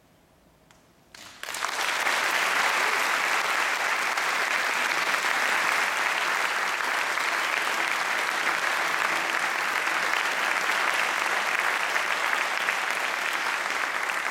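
Audience applause that breaks out suddenly about a second in, after a brief silence, and carries on steadily.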